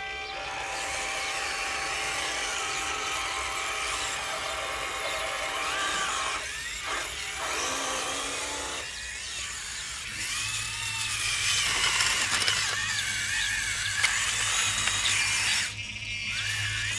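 Small electric motors and gearboxes of RC model construction machines whining, the pitch rising and falling as they are driven and worked.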